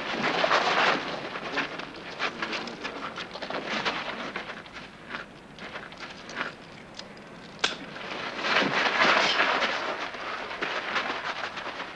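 Scuffle: shoes scraping and crunching on gravel, with clothing and bodies rubbing and knocking against a car. The noise swells twice, once at the start and again late on, with one sharp click a little past the middle.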